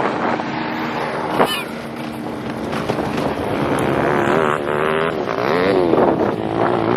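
Small off-road vehicle engine running steadily, then revved up and down several times in the second half.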